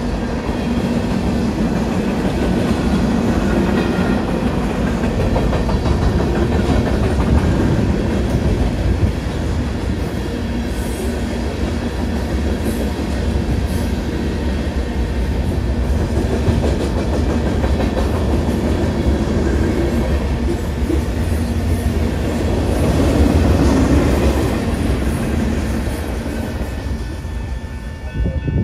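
Freight cars of a manifest train rolling past at a grade crossing: a steady rumble with the clickety-clack of wheels over rail joints, which drops away suddenly near the end as the last car clears. A crossing warning bell rings steadily underneath.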